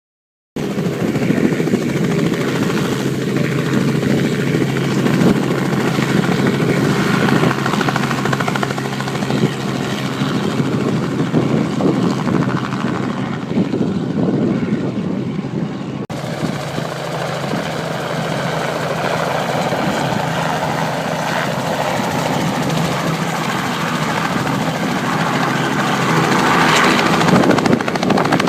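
Aircraft engines running steadily and loudly, with an abrupt change to a new recording about sixteen seconds in.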